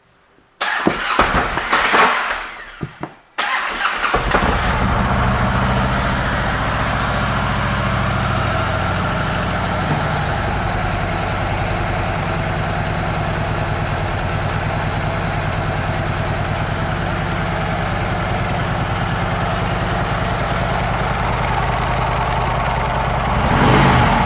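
2010 Harley-Davidson Ultra Classic's Twin Cam 96 V-twin engine starting roughly about half a second in and faltering, then catching about three and a half seconds in and settling into a steady idle. The rough first start was operator error. The engine revs up briefly near the end.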